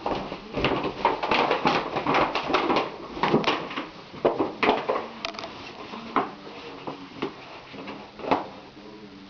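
A shopping bag rustling and crinkling as a Great Dane puppy tugs and paws at it in play: irregular crackles, busiest in the first few seconds, then scattered rustles with a few sharper knocks.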